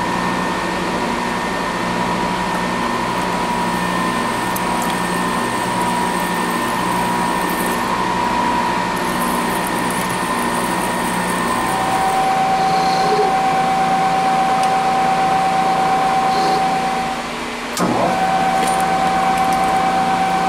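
Drilling machine's spindle motor running steadily with a whine while a drill cuts holes in steel blocks. About 12 seconds in the pitch shifts to a different steady tone as the speed changes, and just before 18 seconds it briefly drops away, then comes back.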